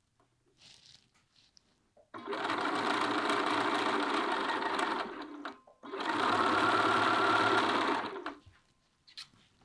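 Bernina B 570 Quilters Edition sewing machine stitching a quarter-inch seam, in two runs of about three and two seconds with a short stop between them. Faint fabric handling is heard in the quiet stretches before and after.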